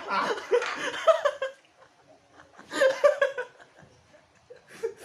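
A person laughing in two bursts, a longer one at the start and a shorter one around three seconds in, with fainter sounds near the end.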